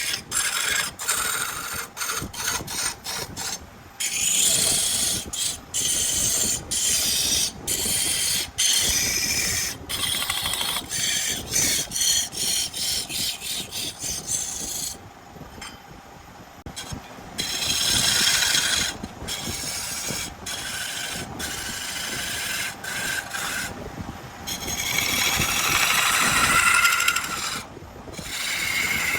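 Wood spinning on a lathe with a tool rasping against it: a rough, steady scraping hiss that repeatedly cuts off and resumes abruptly, with a quieter lull about halfway through.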